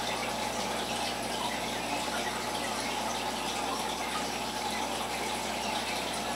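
Steady aquarium water circulation: water running and splashing continuously into the tank, with a faint steady hum beneath.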